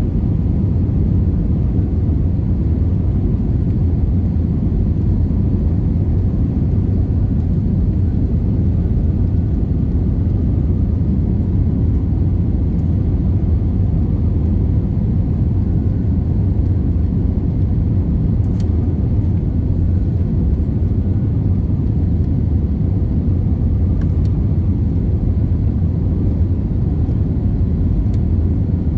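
Steady cabin noise inside an Airbus A320-232 on approach: a deep, even rumble of airflow and its IAE V2500 turbofan engines, with a faint steady whine.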